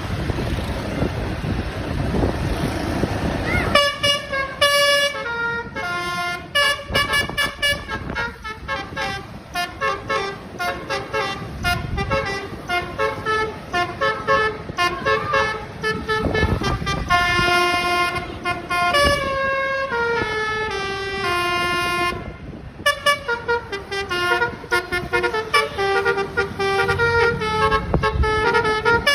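Bus telolet horn, a multi-tone basuri horn, playing a tune of held notes that step up and down. It starts about four seconds in, after wind and engine rumble, and runs on with one short break about three-quarters of the way through.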